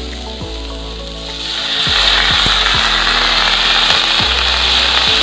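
Soaked rice hitting hot oil in a steel wok of fried banana stem, setting off a loud sizzle that swells up about a second and a half in and keeps going.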